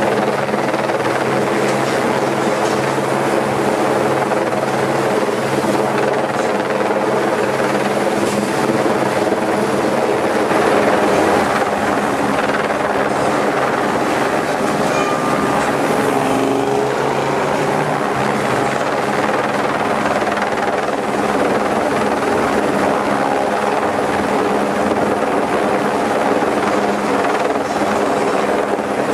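Helicopter hovering with a Heli-Saw tree-trimming saw slung beneath it, its rotor and engine running steadily as a continuous hum.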